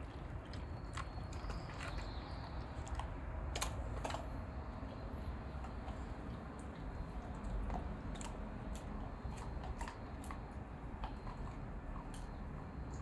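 German shepherd dog chewing and crunching food, irregular sharp crunches and clicks a few times a second over a low rumble.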